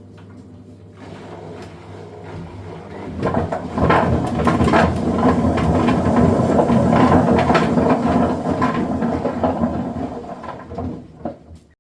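Gorenje washing machine running: a low steady hum at first, then from about three seconds in a much louder, rough churning noise with many small knocks, which fades near the end.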